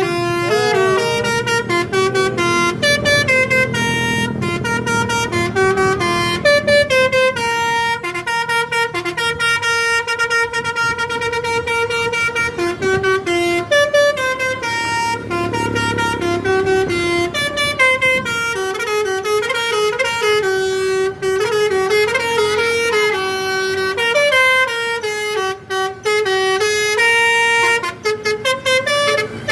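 Indonesian tour bus's 'telolet' musical air horn playing a melody of stepped, held notes with hardly a break, over a low vehicle rumble.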